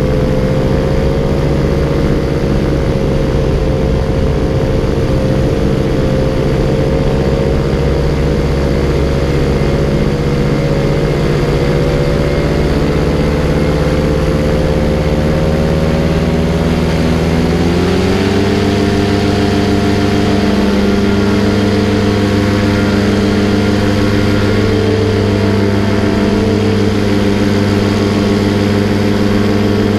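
Paramotor engine and propeller running steadily in flight; about 18 seconds in the throttle is opened and the pitch steps up, then holds at the higher setting.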